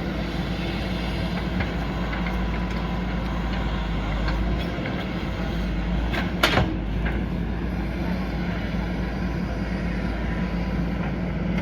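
JCB 3DX backhoe loader's diesel engine running steadily under work, with scattered clicks and one sharp knock about six and a half seconds in.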